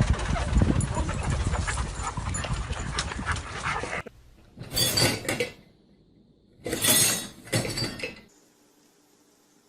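A dog making noisy, breathy sounds, apparently across two clips: a dense stretch, then after a sudden break about four seconds in, three short bursts.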